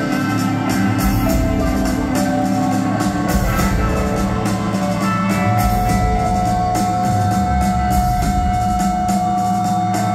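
Rock band playing live with drum kit and electric guitar, without singing, and a long held note coming in about halfway through.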